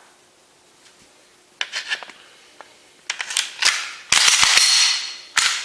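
Glock 19 Gen5 pistol being handled: a few light metal clicks, then about a second of steel sliding along the polymer frame's rails, ending in a sharp click as the slide seats.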